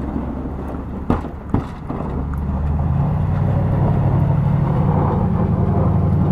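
A motor vehicle's engine running with a steady low hum that grows louder about halfway through, with two sharp clicks about a second in.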